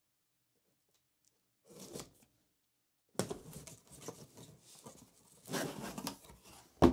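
Cardboard shipping box being opened: a brief rustle, then packing tape tearing and cardboard scraping as the lid is pulled up, and a sharp cardboard knock at the very end, the loudest sound.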